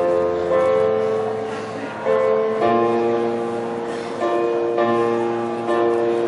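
Electronic keyboard playing slow, sustained chords in a piano voice, a new chord struck about once a second.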